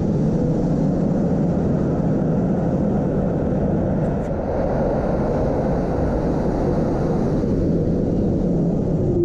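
Toronto CLRV streetcar running through an underground station: a steady, loud rumble of the car's wheels and motors, with a brief faint click about four seconds in.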